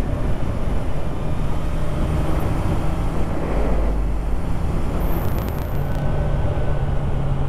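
Motorcycle engine running at a steady cruise, heard from on board, with a constant rush of wind and road noise over it.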